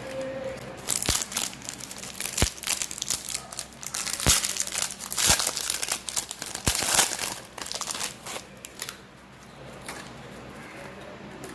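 Plastic wafer-pack wrapper being crinkled and handled: dense crackling with several sharp snaps, dying down about nine seconds in.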